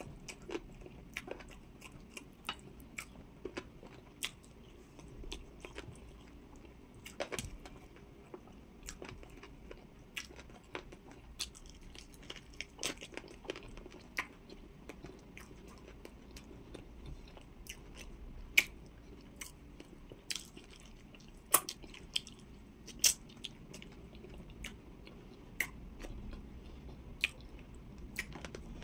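Close-up eating sounds of amala with okra soup and roasted chicken eaten by hand: chewing with many irregular sharp mouth clicks and smacks, a few louder ones between about 18 and 23 seconds in.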